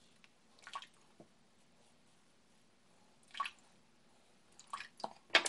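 Double-edge safety razor scraping through lathered stubble on the neck in a few short, wet strokes, spaced out at first and coming closer together near the end.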